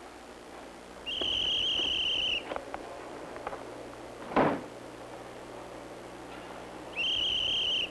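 Two blasts of a railway conductor's high, steady whistle: one of about a second, the other near the end. Between them comes a single heavy thump, like a carriage door slamming shut.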